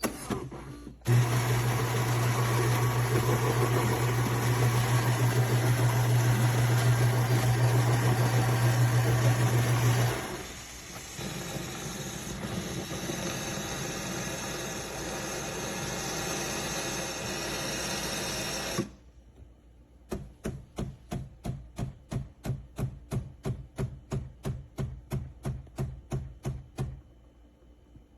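Philips 3300 fully automatic espresso machine making a coffee: the built-in grinder runs loud and steady with a low hum for about nine seconds, then a quieter steady whir follows as the brew cycle goes on. After a short pause the pump pulses evenly, about two or three beats a second, for around seven seconds as the coffee is dispensed, then stops.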